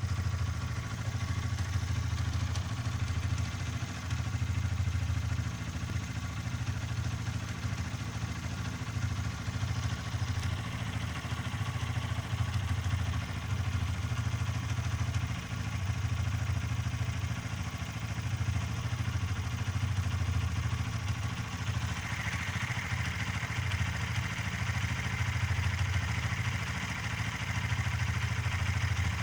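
T2 motorcycle engine idling steadily with an abnormal clattering noise, a noise that goes away when the clutch lever is pulled in. A higher-pitched hiss joins about three quarters of the way through.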